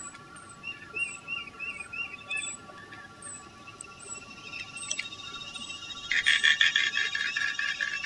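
Small bird chirps repeated two or three times a second. About six seconds in, a louder rapid rattling series of clicks starts: the anhinga's clicking call.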